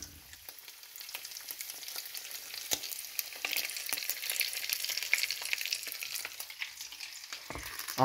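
Cheesy taco-meat omelette sizzling in a frying pan: a steady fat-and-egg hiss full of small crackles and pops, a little busier in the middle.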